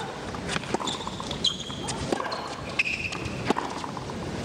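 A tennis rally on a hard court: sharp pops of the ball off the rackets about every second and a half, with short high squeaks of sneakers on the court between them, over a low crowd hum.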